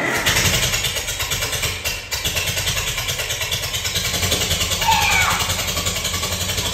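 Farmall M tractor's four-cylinder engine running with a steady, rapid, even beat.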